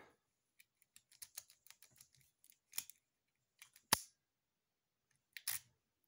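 Faint small metal clicks and scrapes of a skeleton jiggler key being worked in a 40 mm laminated padlock's keyway, against the pins, with one sharp click about four seconds in and another a second and a half later.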